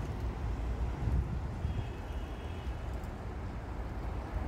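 Outdoor city ambience: a steady low rumble of distant traffic mixed with wind on the microphone.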